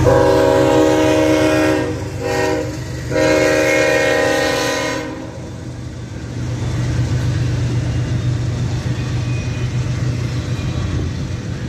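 CSX diesel freight locomotive's air horn sounding a long blast, a short one, then a long one that cuts off about five seconds in. Then the steady low rumble of double-stacked intermodal container cars rolling past.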